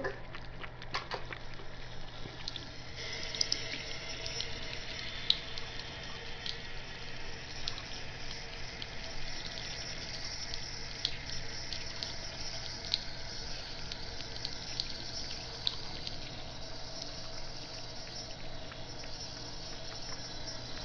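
Tap water running into a sink, with small splashes and drips. The flow gets fuller about three seconds in.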